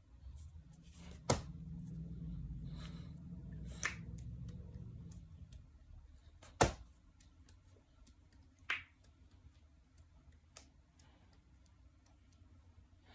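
Knuckles and finger joints cracking: four sharp pops a couple of seconds apart, the third the loudest, then a fainter one. A low rumble runs under the first few seconds.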